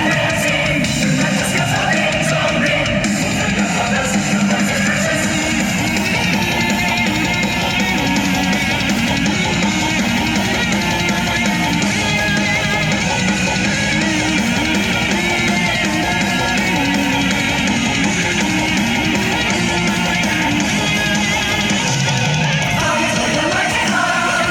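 Loud rock music with electric guitar and drums, played through a car audio system's three-way front speakers and heard from outside the car.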